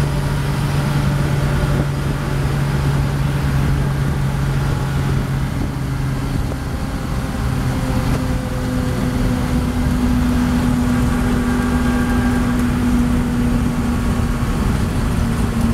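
1962 Willys Jeep FC-170 forward-control truck's engine and drivetrain running steadily under way, heard from inside the cab, with road noise. The engine note changes about seven seconds in, after a brief dip in loudness, and settles on a higher steady tone.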